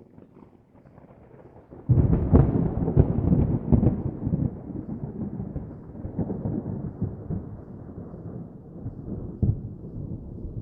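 Thunder: a faint low rumble, then a loud clap about two seconds in that crackles and rolls on, slowly fading, with another sharp crack near the end.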